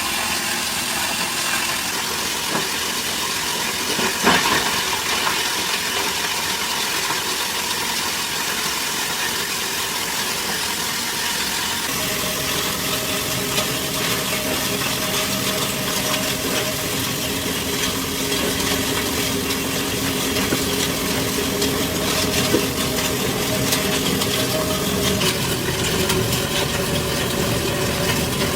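Steady running noise of plastic-recycling factory machinery. About twelve seconds in it changes to a deeper hum with several steady tones.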